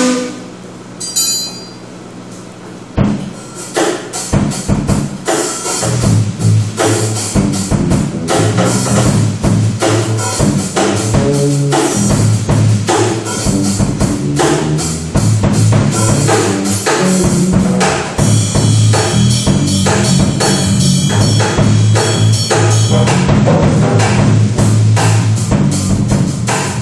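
Live band music: drums and hand percussion strike out a rhythm from about three seconds in, joined a few seconds later by a line of low bass notes that carries on under the beat.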